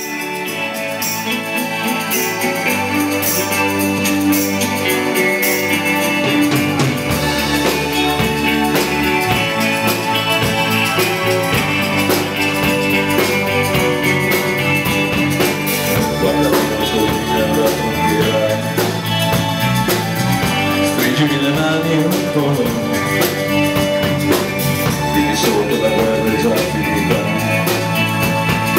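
Live rock band playing a song's instrumental intro, with drums and cymbals, electric bass and other instruments.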